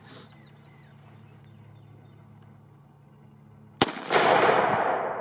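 A single shot from an AR-15 rifle with a 16-inch barrel, firing 55-grain .223 FMJ, about four seconds in: a sharp crack followed by a loud rolling echo that fades away over about a second and a half. Before the shot there is only a faint steady low hum.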